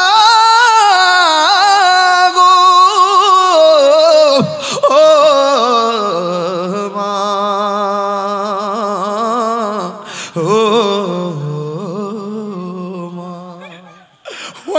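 A man singing a mournful lament to his mother, holding long drawn-out notes with a wavering vibrato, amplified through a microphone. The melody drops lower about four seconds in, and the voice fades away near the end.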